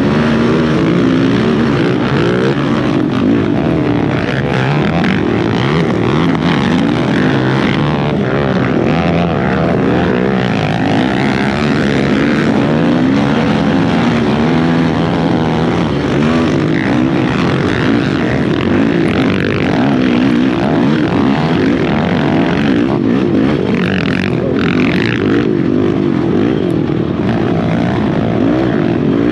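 Honda TRX450R sport quad's single-cylinder four-stroke engine run hard under throttle, its pitch climbing and dropping over and over, with other racing quads' engines alongside.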